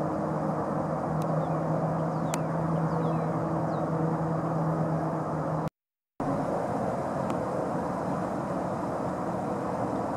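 Steady distant engine noise, a low drone over a hiss. It cuts out for about half a second a little over halfway through. A couple of faint clicks and a few faint high falling chirps sound in the first half.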